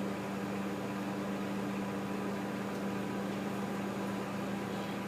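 Microwave oven running: a steady hum of the magnetron and cooling fan, with a soap bar inside, not yet reacting.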